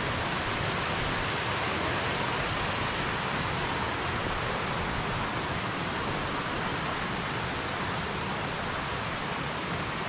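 Waterfall cascades rushing: a steady, even sound of falling water without breaks.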